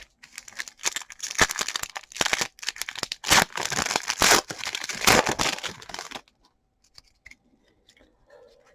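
A foil trading-card pack being torn open, its wrapper crinkling for about six seconds, then a few faint ticks.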